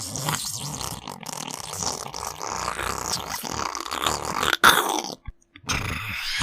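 Harsh, distorted gurgling and rasping sound effects meant as sickly, demonic alien noises. A sharp burst comes a little before the end, then a short drop-out, and the rasping starts again.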